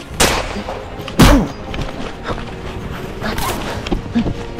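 Thumps and scuffing of a person in a winter jacket tumbling into snow, the loudest thud about a second in.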